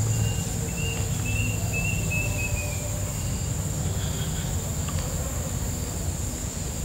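Steady high-pitched insect drone over a loud low rumble, with a short run of chirps in the first three seconds.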